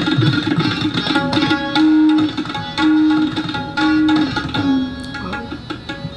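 Tabla played fast in a rela imitating a horse's gallop: rapid, dense drum strokes, over a melodic accompaniment that repeats held notes about once a second.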